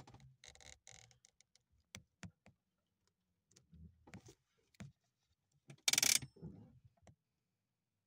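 Sparse, faint clicks and knocks, with one short loud burst of hiss-like noise about six seconds in.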